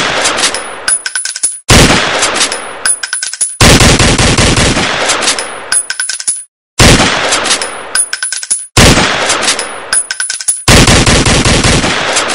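Six loud bursts about two seconds apart, each starting suddenly and trailing off in a rattle of quick clicks with a thin metallic ring.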